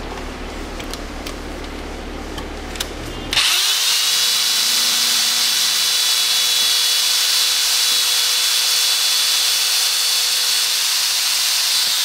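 Electric drill turning a bit in a broken steel bolt set in a cast engine mount. After about three seconds of lower rumbling it jumps suddenly to full speed and runs on with a steady, high whine.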